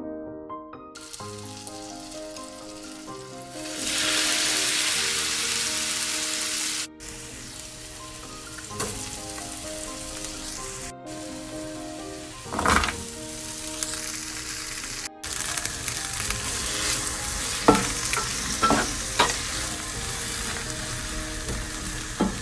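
Butter and chopped tomatoes, capsicum and peas sizzling in a nonstick frying pan, with a few knocks of a wooden spatula stirring them. The sizzle gets louder about four seconds in and breaks off abruptly a few times.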